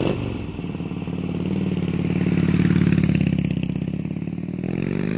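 Motorcycle engine running, swelling in loudness and easing off, then rising in pitch near the end as it is revved.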